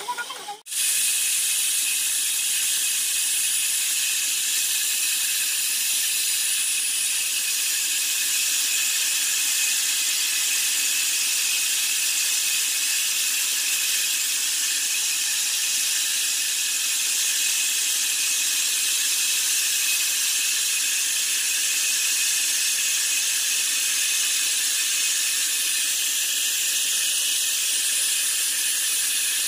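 Band sawmill running with its blade at a log: a steady, loud high-pitched hiss that starts abruptly just under a second in.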